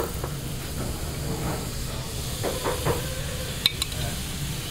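Sauce simmering with a steady hiss in a stainless pan over a portable butane burner, as salmon fillets are laid into it with metal tongs; one sharp metal click of the tongs about three and a half seconds in.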